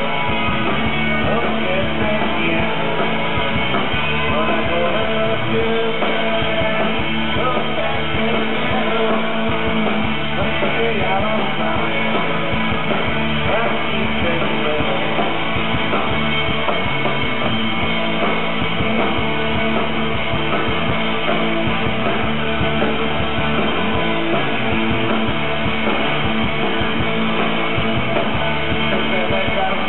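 Rock band playing live and loud, with guitars and drums.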